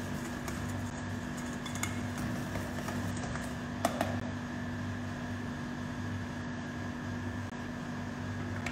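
Steady machine hum in a small room, with faint clicks of a wire balloon whisk working batter in a stainless steel bowl and one sharper tap of the whisk against the bowl about four seconds in.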